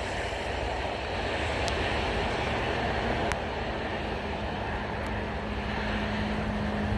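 Steady traffic noise: vehicles running on wet pavement, with a steady low hum joining about halfway through and a few faint ticks.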